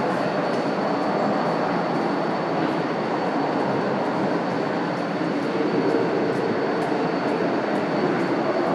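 Railway station platform ambience: a steady, dense rumble of train and station machinery with a thin high whine held throughout, and faint scattered clicks on top.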